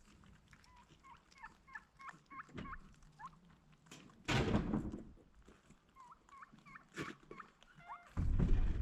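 Turkeys calling in quick runs of short, high, hooked notes. Two loud bursts of low rumbling noise break in, one about four seconds in and one near the end.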